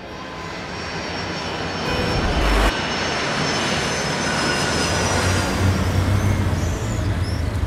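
A steady rush of engine noise swells up over the first two seconds, with a brief low rumble about two and a half seconds in, and then holds steady over a low hum. A few short high chirps come near the end.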